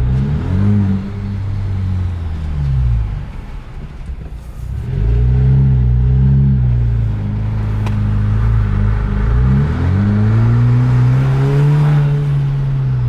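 Jeep Wrangler JL's 2.0-litre turbocharged four-cylinder through an aFe stainless axle-back muffler-delete exhaust, heard from inside the moving Jeep with the windows down. The engine note rises as it accelerates and falls back several times, with a quieter lull about four seconds in, then pulls up again and holds before easing off near the end.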